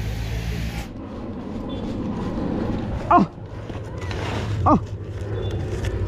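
Monkey calls: two short cries about a second and a half apart, each sliding sharply down in pitch.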